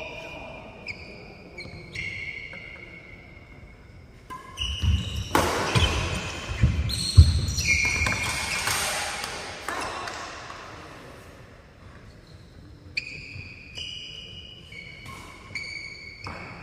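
Badminton rally on a wooden sports-hall floor: shoes squeak sharply and rackets tick against the shuttlecock. About five seconds in, a cluster of heavy thuds comes as a player goes down onto the floor, followed by a loud burst of noise that rings on in the hall.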